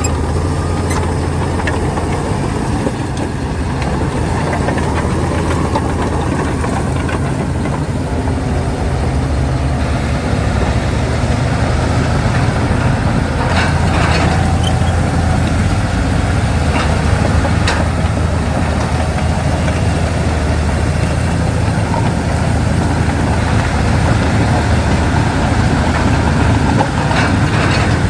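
Heavy diesel engine of a Shantui DH17 bulldozer running steadily, getting a little louder about a third of the way in, with a few sharp clicks about halfway through.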